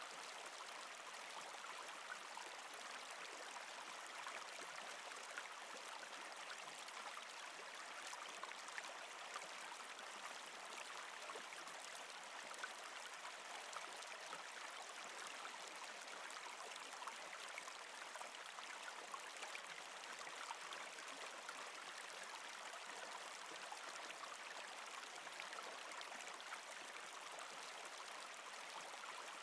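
Faint, steady running water of a small river, with tiny scattered ticks.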